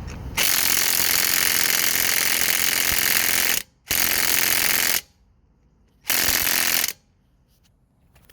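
Werktough impact wrench hammering in three bursts: a long one of about three seconds, then two shorter ones, each stopping sharply.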